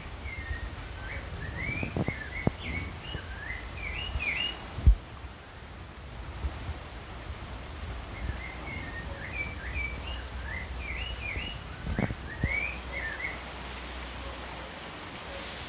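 A songbird singing two phrases of quick, rising chirps, about eight seconds apart, over steady low background noise. A few short low thumps sound under it, the loudest about five seconds in.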